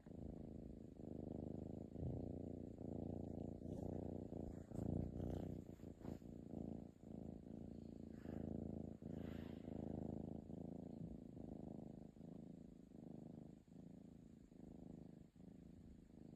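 A pet cat snoring in deep sleep: a low, rhythmic rasp that comes and goes with each breath.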